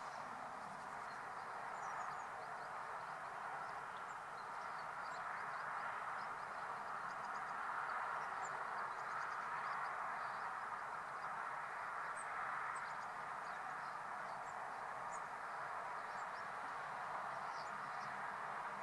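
Steady outdoor background noise, with faint, short high chirps of small birds scattered throughout.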